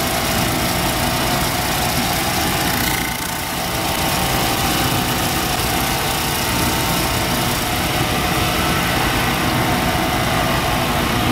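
Homemade lapidary polishing machine running: its electric motor and spinning sanding wheel give a steady mechanical drone, briefly softer about three seconds in.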